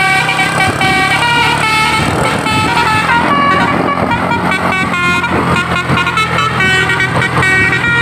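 Basuri 'telolet' multi-tone bus horn playing a tune, its notes changing in quick steps, over the steady hum of the bus's engine.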